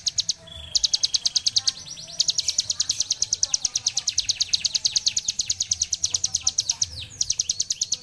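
Caged hill prinia (ciblek gunung) singing its fast, drill-like 'ngebren' trill, a long run of rapid high notes at about ten a second. The run breaks briefly near the start, about two seconds in and about seven seconds in.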